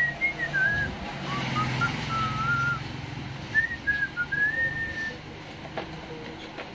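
A person whistling a wandering tune in three short phrases, with a low rumble underneath in the first half.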